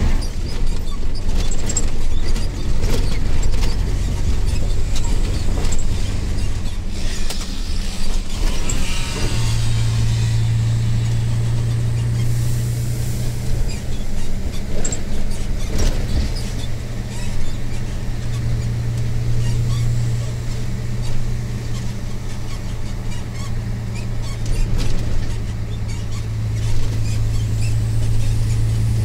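Cab interior sound of a Mercedes-Benz Actros MP1 2643 truck on the move: the diesel engine's steady drone with road rumble, the engine note growing stronger about nine seconds in. A brief squeal comes just before that, and a short hiss follows a few seconds later.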